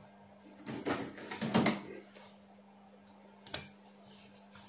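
Hands handling a finned aluminium heatsink against a circuit board: a run of scraping and rubbing between about one and two seconds in, then a single sharp click about three and a half seconds in.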